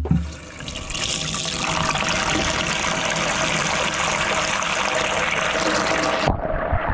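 Salt brine poured from a container into a plastic tub over an eel, a steady splashing rush that cuts off suddenly about six seconds in. A brief thump right at the start.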